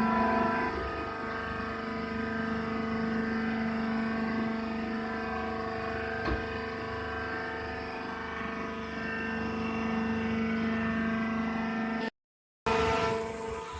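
Hydraulic press baler running: its motor and hydraulic pump give a steady, even hum, with one short knock about six seconds in. The sound cuts out briefly near the end.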